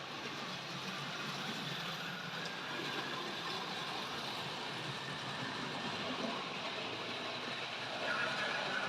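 Model railway locomotive running along the layout's track: a steady whirr of the small electric motor and the wheels on the rails, growing a little louder near the end.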